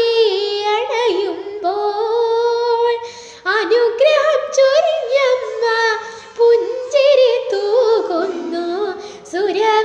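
A young woman singing a Malayalam devotional song solo and unaccompanied. She holds long, wavering, ornamented vowel notes with a brief breath about three seconds in.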